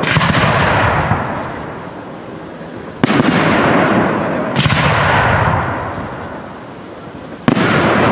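Aerial firework shells bursting four times, each a sharp bang followed by a long fading echo.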